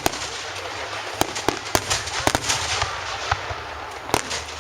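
Fireworks going off: a string of sharp pops and bangs at uneven intervals over a hissing background, with a tight cluster of bangs near the end.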